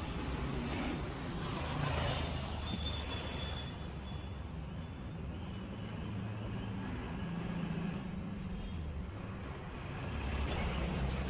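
Street traffic noise: a steady low rumble of vehicle engines under a general hiss of passing traffic.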